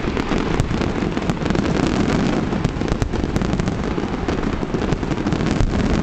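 Large fireworks display going off in a dense barrage: many overlapping bangs and crackles with no pause between them.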